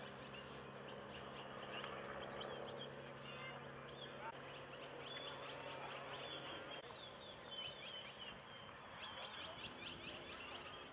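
Birds calling in quick, short chirps over a steady low hum.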